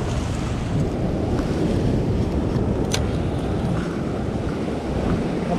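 Ocean swell washing and surging against the rock ledge below, with wind buffeting the microphone. A single sharp click about three seconds in.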